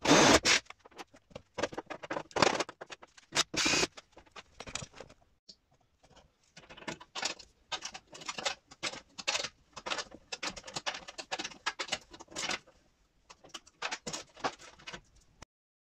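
Irregular clicking and rattling of a hand ratchet and socket turning a homemade rivnut setting tool, crimping rivnuts into a carbon-fibre front guard. A few louder bursts of noise come in the first four seconds, and the clicks run dense from about six seconds in.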